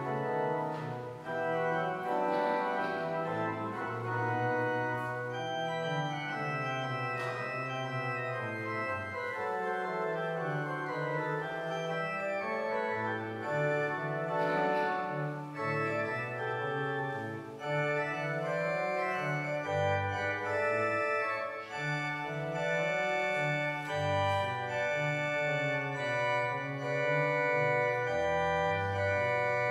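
Church organ playing the prelude: full held chords over a bass line that moves from note to note.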